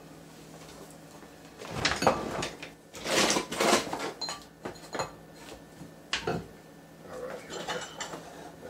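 Clatter of kitchenware being handled and set down on a countertop: sharp knocks and rattles in several bursts, the loudest a little after a few seconds in. Near the end, lighter rattling as the fruit press's screw handle begins to turn.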